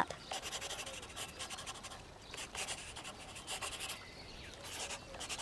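Felt-tip marker drawing on paper, a faint scratchy hiss in short, irregular strokes as lines are drawn.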